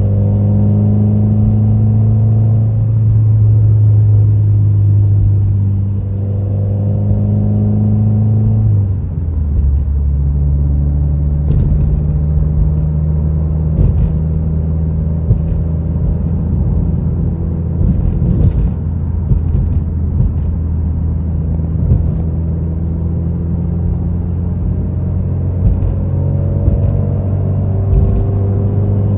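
Subaru WRX's turbocharged flat-four engine running at steady cruising revs from inside the cabin. About nine seconds in, the engine note drops to a lower pitch and then holds there, with a few faint clicks later on.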